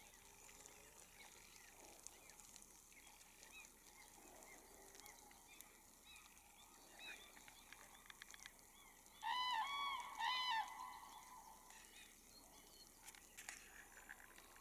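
Common cranes trumpeting: two loud calls about a second apart, each a quick run of arched, rising-and-falling notes, over fainter scattered chirps.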